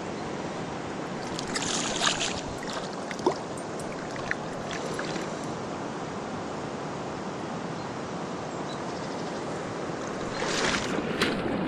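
Shallow water sloshing around wading boots at a muddy bank over a steady rush of water, with a few louder splashes about two seconds in and again near the end.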